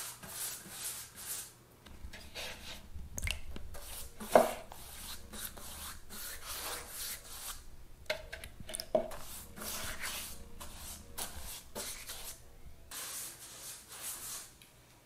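A paintbrush spreading oil over a raw birch butcher-block surface: repeated soft scrubbing strokes, with a brief knock about four seconds in.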